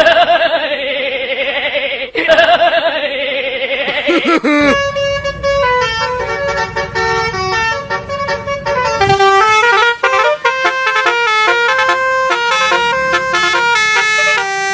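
Indonesian 'telolet' Basuri bus horn: two wavering horn blasts of about two seconds each, then, from about five seconds in, a quick tune of stepped horn notes.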